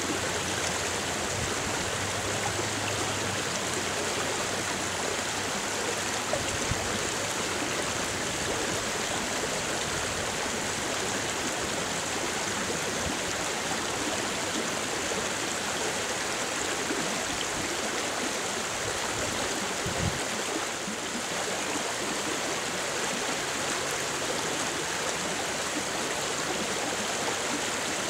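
Creek water running steadily, an even rushing hiss with no break, and a couple of soft low bumps.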